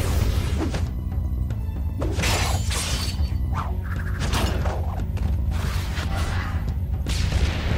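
Action-cartoon score with a heavy low beat, overlaid with sound effects: repeated whooshing energy blasts and a shattering crash.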